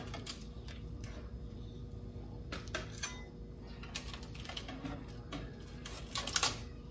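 Kitchen tongs clicking and scraping on a foil-lined baking sheet as broiled fish is lifted onto a plate: scattered light clinks, with a louder cluster about six seconds in.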